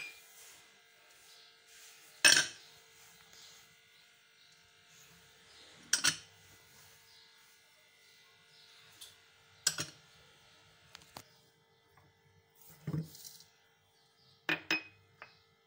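Spice jars and a spoon clinking and knocking against a steel platter as spices are added to chopped vegetables: a handful of sharp knocks a few seconds apart, the loudest about two seconds in, with two close together near the end. A faint steady hum runs underneath.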